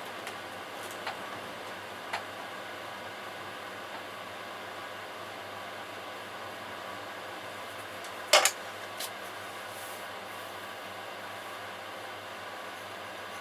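Steady whirring hum of an electric pottery wheel running, with a couple of faint clicks early on and one short sharp knock about eight seconds in.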